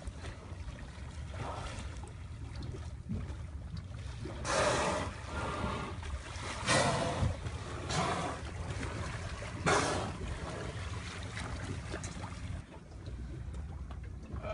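Killer whales surfacing right beside a small boat: four short rushing blows and splashes, about 4 and a half, 7, 8 and 10 seconds in, over steady low wind rumble on the microphone and water lapping at the hull.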